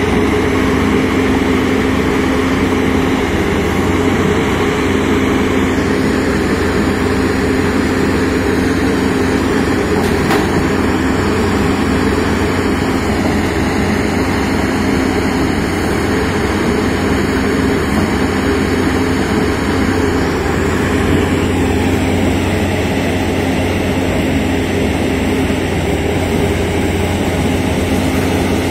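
Diesel engine and hydraulics of an Italian IMT rotary piling rig running steadily, with a constant low hum and a steady mid-pitched drone. Near the end the rig is lifting its toothed drilling bucket out of the bore.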